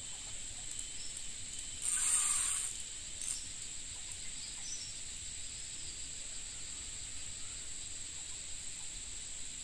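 Steady high-pitched chirring of insects, with a brief hissing burst about two seconds in.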